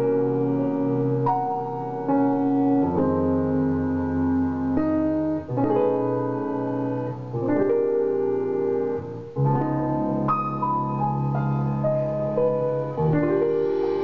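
Slow ballad played on a Malletkat synthesized mallet instrument set to a piano-like keyboard sound: sustained chords under a melody, a new note or chord every second or two.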